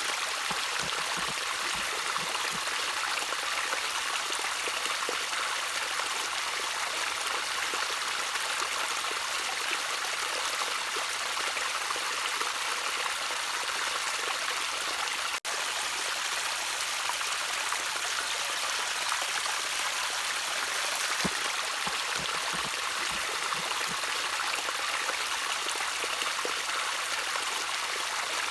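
Water trickling and running steadily in a small stream, an even hiss without pauses, with a split-second dropout about halfway through.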